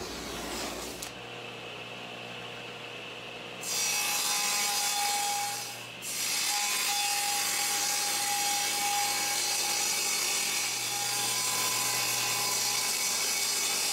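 Table saw cutting hardwood drawer fronts against the fence, trimming them for drawer clearance. It runs quietly at first, then makes steady loud cutting noise with a faint whine from about 4 s in, in two passes with a short break at about 6 s.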